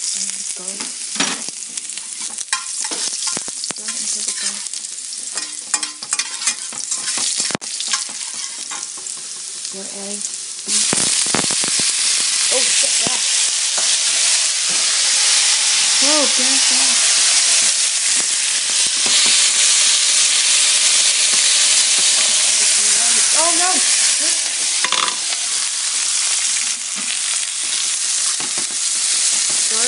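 Minced garlic sizzling in hot oil in a frying pan while a metal spatula scrapes and taps the pan. About ten seconds in, the sizzle turns much louder and denser as bean sprouts and green onions go into the oil, and it keeps on as they are stir-fried.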